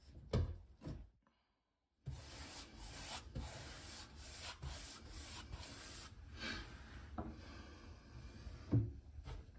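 A few knocks, then after a short break primer being brushed onto the wooden cabinet floor: a rubbing of bristles on wood, about two strokes a second. One louder thump near the end.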